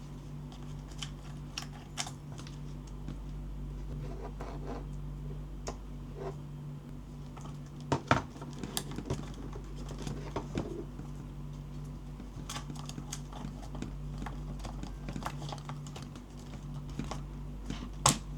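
Irregular light clicks and taps of objects being handled, with a pair of sharper knocks about eight seconds in and another near the end, over a steady low hum.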